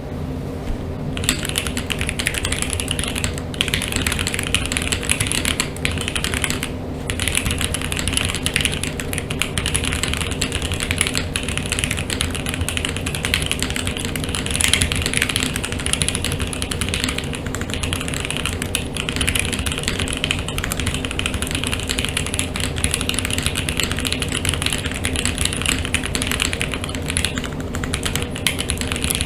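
Continuous typing on an ai03 Vega mechanical keyboard with stock 43 Studio OPBlack linear switches, built on a polycarbonate plate with plate and case foam and topped with GMK keycaps. The keystrokes come in a steady stream of subdued clacks, with no spring noise.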